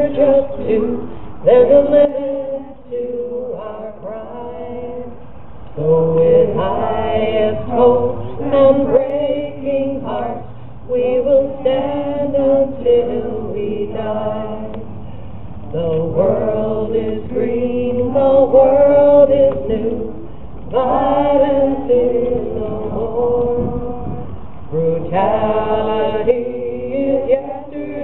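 A group of people singing a song together in long, held phrases a few seconds each, with short breaks between them.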